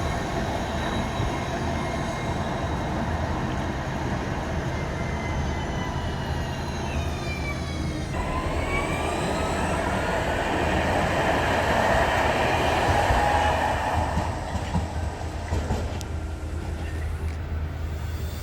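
Alstom Citadis Dualis tram-train (U53700) running, its electric traction motors whining over a steady low rumble. The whine falls in pitch as it slows, then rises again from about eight seconds in as it picks up speed, and it is loudest a few seconds later.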